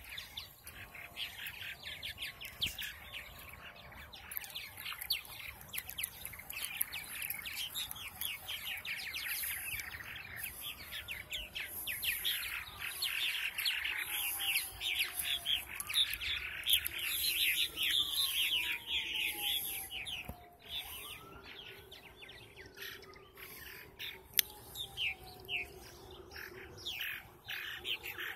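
A colony of purple martins calling at once: a dense chatter of quick chirps from many birds, busiest and loudest through the middle.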